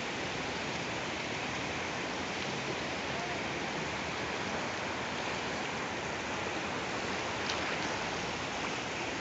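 Steady rushing noise of rain and surf on a sandy beach.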